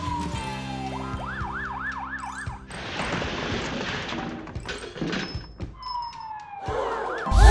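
Cartoon background music with sound effects over it. A long falling whistle-like slide ends just under a second in. A quick warbling siren-like wail of about five rises and falls follows. A rushing noise then lasts a second or two, and near the end there is another falling slide and more warbling.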